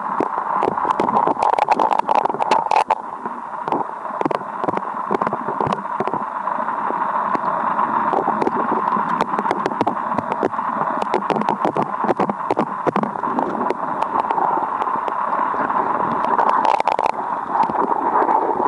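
Strong river current heard underwater: a steady rushing hiss with many sharp small clicks and knocks scattered through it.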